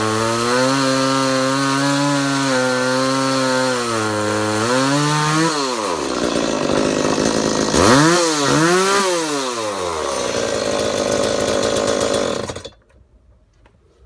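Rebuilt Stihl 019T top-handle two-stroke chainsaw cutting wood, its engine pitch wavering under load. About halfway through the pitch drops, then the revs rise and fall twice, and the sound cuts off suddenly near the end.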